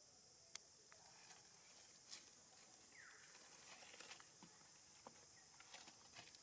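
Near silence: faint outdoor ambience with a steady high hiss and scattered small clicks and rustles, and one short falling squeak about three seconds in.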